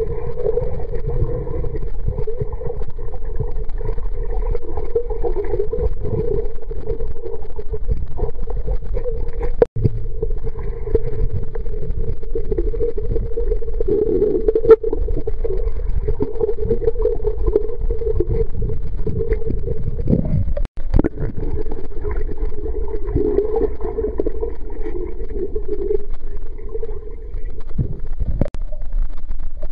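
Muffled underwater sound of a swimming pool: a steady dull rumble and bubbling as a dog dives and paddles through the water near the microphone. The audio drops out for an instant twice.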